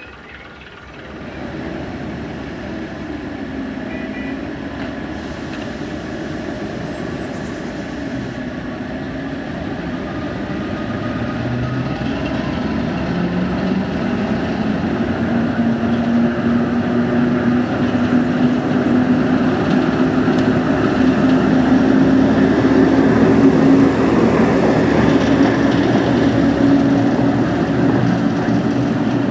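Diesel train running with a steady engine note, jumping up about a second in and then growing steadily louder as it draws closer.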